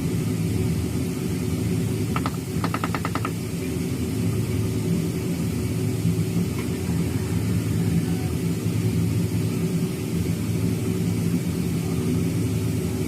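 Steady low drone of airliner cabin noise, engines and airflow, with a short rapid rattle about two to three seconds in.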